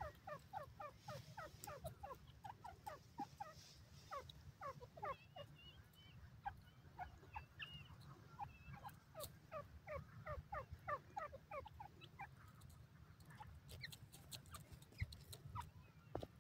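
Grey francolin giving faint, rapid calls: runs of short clipped notes at about three or four a second, in two long bouts with a few higher notes between them.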